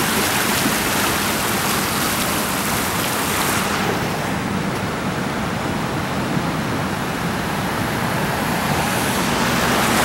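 Steady rush of a creek in flood carrying broken ice, a dense even hiss of moving water. The highest part of the hiss thins for several seconds in the middle, then comes back.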